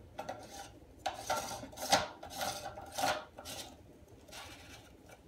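A new nut being fitted onto the flush valve at the bottom of a porcelain toilet tank: a run of short scrapes and light knocks of parts rubbing against the porcelain, loudest about two and three seconds in.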